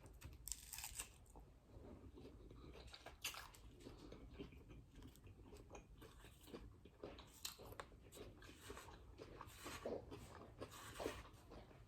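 Faint crunching and chewing of a crispy hard-shell taco, in scattered short crunches.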